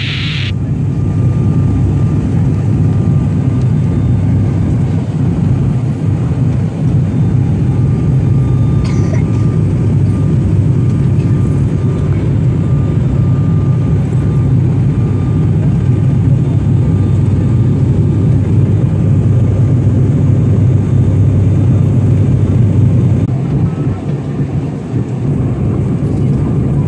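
Steady low drone of an ATR 72-500's twin turboprop engines and propellers heard from inside the passenger cabin in flight, with a faint steady high whine above it.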